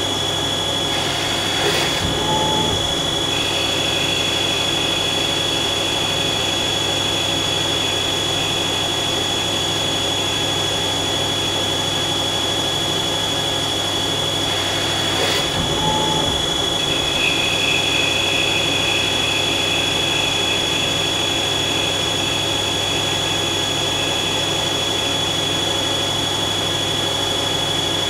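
Mazak CNC lathe spindle running with a steady hum and a constant high whine while a carbide insert turns a metal part dry, with the coolant shut off. A second, lower whine comes and goes with the cutting passes, broken by brief sharper noises about two seconds in and again about halfway.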